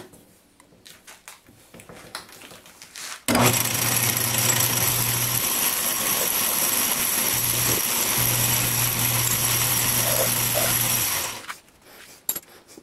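A few light clicks of tool handling, then, about three seconds in, a metal lathe starts abruptly and runs steadily for about eight seconds with a low hum and a high whine, turning a steel shaft driven by a lathe dog on the faceplate to cut a chamfer on its threaded end. It is switched off and winds down about a second and a half before the end.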